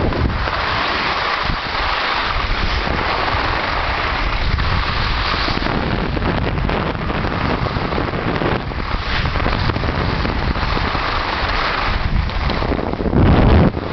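Steady rushing wind noise on the microphone mixed with the hiss of snowboard edges sliding over packed snow. A louder low gust of wind buffets the microphone near the end.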